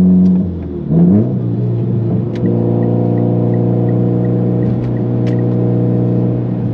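Turbocharged four-cylinder of a Mitsubishi Lancer Evolution X with an open dump and titanium exhaust, heard from inside the cabin while driving. The engine note falls off about half a second in, rises briefly a second in, then settles into a steady low drone at lower revs.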